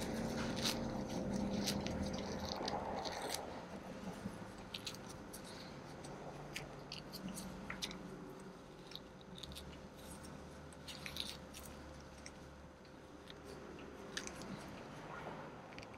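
Fingers plucking hair from a standard poodle puppy's ear canal: scattered small crackles and rustles as the powdered hairs are gripped and pulled out, busier in the first few seconds.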